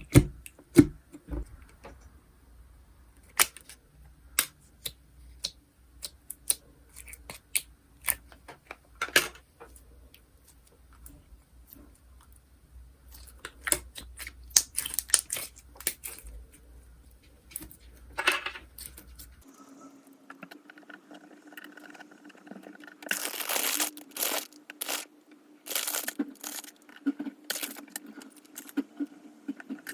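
Slime being handled by hand, squeezed, poked and stretched, giving a string of sharp clicks and pops; after a cut about two-thirds through, denser crackling bursts.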